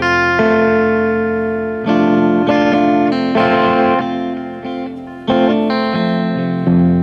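Guitar playing slow, ringing chords, with a new chord struck about every one to two seconds.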